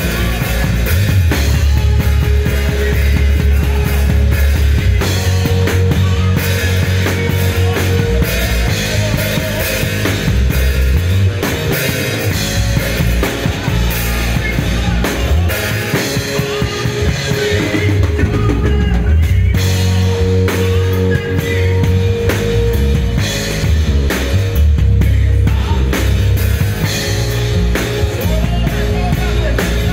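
Drum kit played with sticks, a steady run of drum and cymbal hits, along with rock-style band music that carries a sustained bass line.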